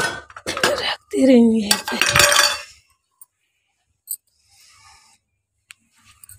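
Stainless steel pressure cooker and small metal pan clanking against each other and the concrete floor as they are set down: a quick cluster of clinks and clatter in the first three seconds, then a few light knocks.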